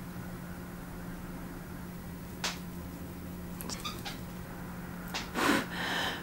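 Low steady hum with a single click and a few soft ticks, then near the end a couple of sharp, hissing breaths through the mouth from someone wincing as a costume contact lens goes in.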